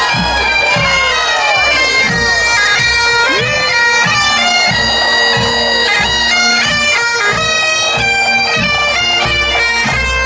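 Highland bagpipes of a marching pipe band playing a tune over their steady drone, with drums beating time at about two strokes a second.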